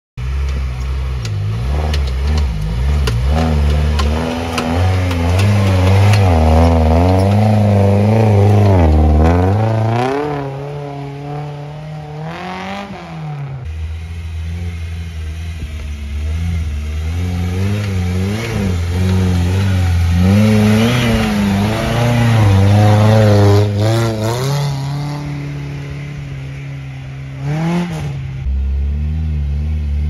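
Off-road 4x4's engine revving up and down under load, its pitch rising and falling every few seconds, easing off about halfway through before pulling steadily again.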